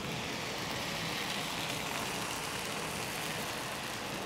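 Appam batter sizzling steadily in a hot appam pan.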